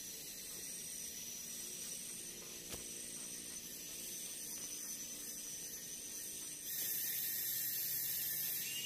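Steady high hiss of jungle ambience, growing louder and brighter about seven seconds in, with one faint knock about three seconds in.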